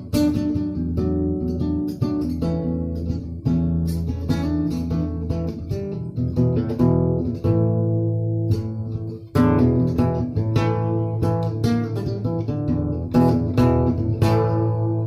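Acoustic guitar music: plucked and strummed chords with a bass line, playing steadily.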